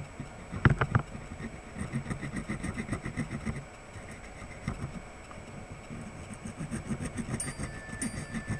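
Circuit board being scrubbed clean with isopropyl alcohol, a fast, even rubbing, with a few knocks about a second in.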